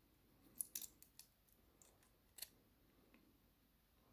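Faint, short, sharp metallic clicks at irregular spacing, a pinning shoe being worked into an ISEO R6 plus dimple lock cylinder.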